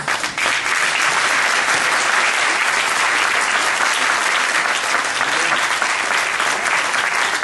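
Audience applauding: steady, dense clapping that keeps up unbroken.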